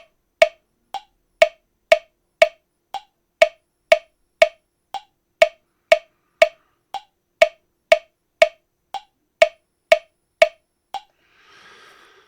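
Vegas Pro 19's default metronome clicking steadily at about two clicks a second, stopping about eleven seconds in. The first beat of each bar barely comes through, so the downbeat is hardly marked.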